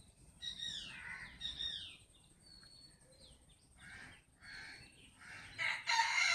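High animal calls: two calls sliding down in pitch early on, a few shorter calls, then a louder, longer call beginning near the end.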